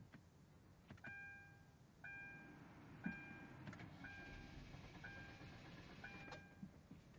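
Hyundai Genesis Coupe's in-cabin warning chime ringing six times, about once a second, with several sharp clicks in between, the loudest about three seconds in, during the car's intermittent no-start.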